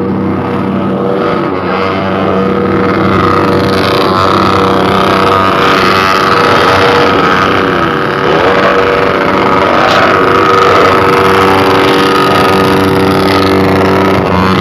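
Suzuki Satria FU motorcycle's single-cylinder engine running loudly at steady revs through an aftermarket Trawas racing exhaust, its note holding an even pitch and swelling slightly partway through.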